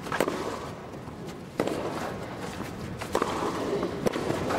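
Tennis rally on a grass court: sharp racket-on-ball hits trading back and forth, about one every second or so.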